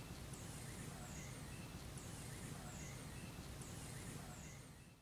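Faint outdoor ambience: a bird gives a short, high, falling call about once a second over a low rumble, with a few softer chirps, fading out at the end.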